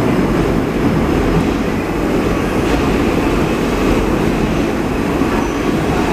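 An R160 subway train running along the track: a steady noise of wheels on rail and car motion.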